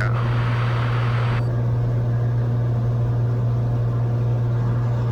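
Cessna 182's flat-six piston engine and propeller droning steadily in level cruise, heard inside the cabin. A hiss over the drone cuts off sharply about a second and a half in.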